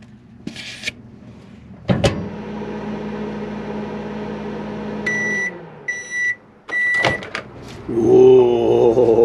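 Magic Chef MCD990ARB microwave oven: the door clicks shut, the oven runs with a steady hum for about three seconds and winds down, three beeps sound as the cycle ends, and the door clicks open. Near the end a man's voice gives a loud, wavering hum.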